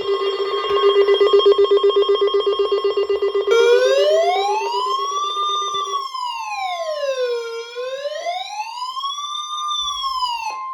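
NOAA Weather Radio's steady 1050 Hz warning alarm tone, with other alarm sounds over it. A rapid, loud buzzing alarm sounds for the first six seconds. From about three seconds in, an electronic wailing siren rises and falls about every four seconds, then cuts off just before the end.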